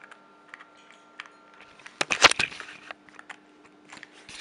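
Sharp plastic and metal clicks and knocks from a DB9 serial cable connector and USB-to-serial adapter being pushed together and handled, with a loud cluster of clicks in the middle, over a faint steady hum.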